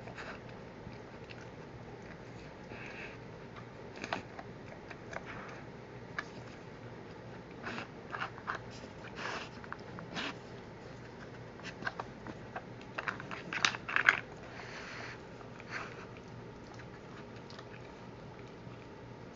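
A dog working a plastic treat puzzle with its nose: scattered clicks and clacks of the sliding covers and bone-shaped plugs, with biting and chewing of treats. The clacking is loudest about two-thirds of the way through.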